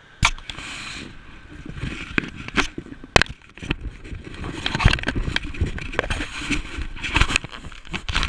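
Action-camera handling noise: a sharp knock about a quarter second in, then a run of bumps, rubbing and low wind rumble on the microphone, with scattered knocks throughout.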